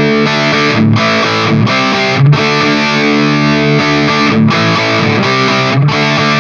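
Electric guitar played through a high-gain overdrive pedal, ringing out sustained distorted chords. Short breaks between chords mark the chord changes.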